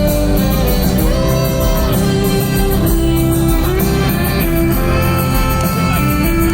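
Live band music in an instrumental passage: a melody of long held notes with small slides and vibrato over a full, steady accompaniment.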